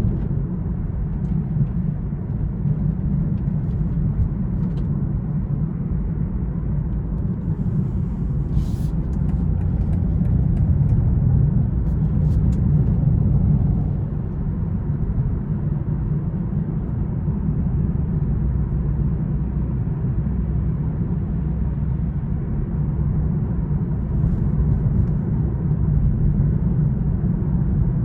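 Steady low rumble of a 2020 BMW M340i xDrive driving on snowy roads, engine and tyre noise together. It grows a little louder about ten seconds in and drops back a few seconds later.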